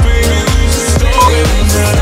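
Electronic dance background music with a steady beat. A short high beep sounds a little past the middle: an interval timer's countdown beep.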